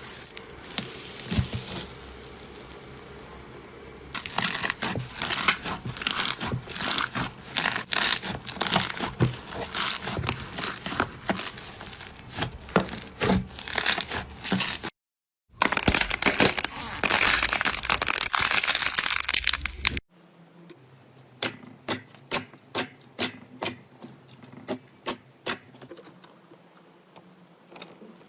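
Slime being squeezed, stretched and poked by hand in a string of short clips, making crackling, crinkling and popping sounds. After a brief silence midway and a cut, it becomes a quieter run of sharp pops, two or three a second.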